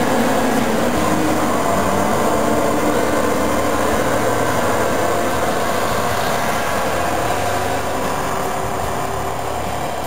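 Claas Lexion 540 combine harvester running, a steady machine drone with a held whine, growing slowly fainter as it drives away across the stubble.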